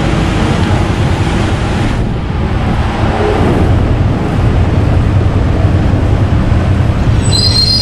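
Steady, loud noise of motor vehicles and engines, with a high-pitched squeal starting near the end.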